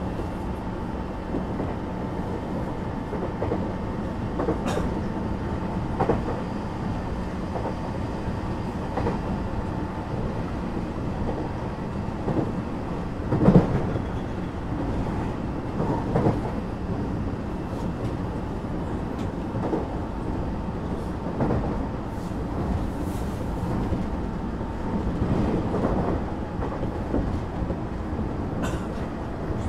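Onboard running sound of a JR West 225 series 0-bandai electric train with a Toyo Denki IGBT inverter, cruising between stations: a steady rumble of wheels on rail with a faint steady whine that fades out about three-quarters of the way through. Scattered knocks from the wheels and track, the loudest about halfway.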